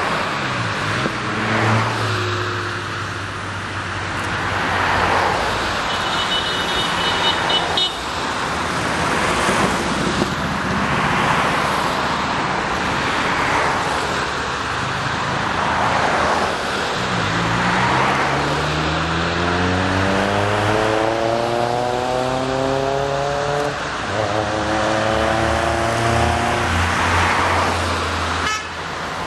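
A convoy of cars driving past one after another, the tyre and engine noise swelling and fading as each goes by. A horn sounds for about two seconds, some six seconds in. Later an engine twice accelerates hard, its pitch climbing steadily.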